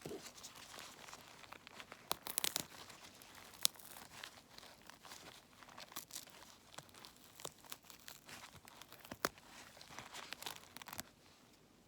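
An N95 mask's fabric edge being torn apart by hand and the old elastic strap pulled out: irregular ripping and crinkling of the mask material, which stops about a second before the end.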